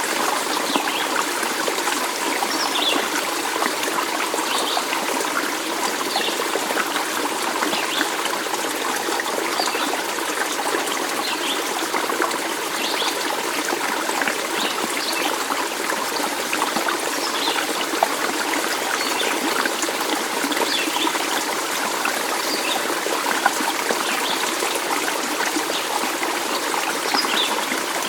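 Stream water trickling and babbling steadily over rocks, with short high chirps dotted throughout.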